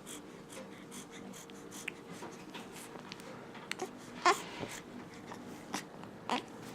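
Newborn baby fussing: two short, whimpery cries, the louder one about four seconds in and another just after six seconds, with faint small clicks between them.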